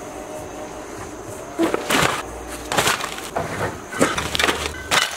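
Garbage bags full of trash thrown one after another onto a pile of broken scrap wood, landing with crunching and cracking of wood and debris. The first lands about two seconds in, and more follow about once a second.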